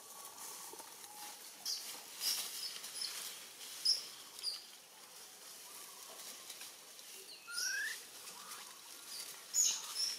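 Dry leaf litter crackling and rustling in scattered bursts as a baby monkey crawls and shifts over it, with a short rising chirp about seven and a half seconds in.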